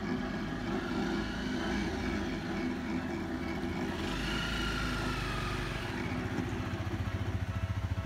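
Engine noise of a motor vehicle that comes in suddenly at the start and runs steadily, with a pitch that rises and falls in the middle. A fast, low throbbing builds up near the end.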